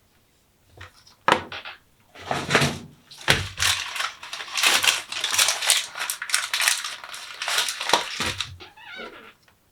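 Rustling and crinkling with many small clicks, as of plastic packaging or parts being handled, running for about six seconds and then stopping.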